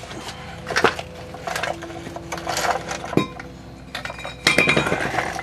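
Metal parts and tools clinking and knocking as brake parts are handled during a wheel hub job. There are a few sharp knocks, the busiest stretch near the end.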